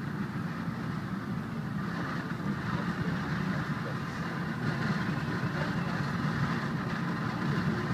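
Cable car cabin travelling along its cables, heard from inside: a steady low hum and even running noise.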